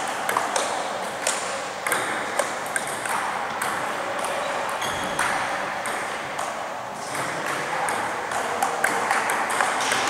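Table tennis ball clicking back and forth off bats and table in rallies, with more ball clicks from neighbouring tables over a steady hall murmur. The clicks thin out in the middle during a break between points and come quickly again near the end.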